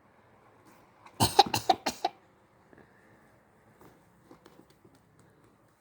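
A person coughing on purpose in a quick run of about five short coughs, a little over a second in, done as a cough for a baby to copy.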